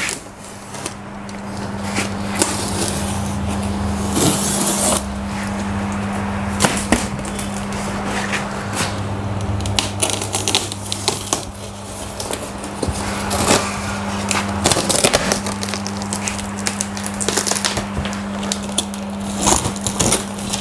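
Box cutter slitting and scraping through packing tape on a polystyrene foam shipping box, with irregular scrapes, creaks and clicks as the tape and foam are cut. A steady low hum runs underneath.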